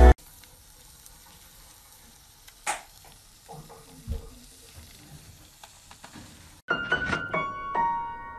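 Faint, steady sizzling of food on foil, with one sharp click about two and a half seconds in and a few soft knocks around four seconds. About six and a half seconds in it cuts to music with ringing piano-like notes.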